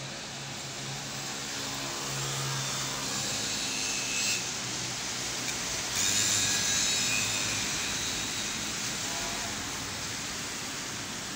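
Rain falling on a wet street, a steady hiss, with traffic running through the water on the road. A vehicle passes louder about six seconds in, then fades.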